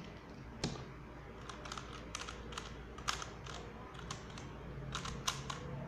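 X-Man Tornado speed cube being turned by hand, its plastic layers clicking in quick, irregular runs of turns; it turns very smoothly.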